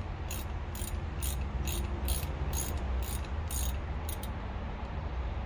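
A mechanism clicking in an even series, about two sharp clicks a second, stopping about four seconds in, over a steady low hum.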